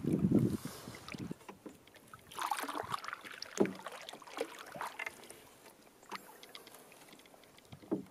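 Wooden canoe paddle strokes: the blade dipping and pulling through lake water with splashes and drips, several irregular strokes. A low thump opens the sound and is its loudest part.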